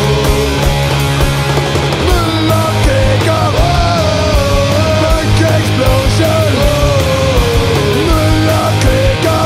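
Loud punk rock music: a dense, driving band sound with a wavering, bending lead melody line over it.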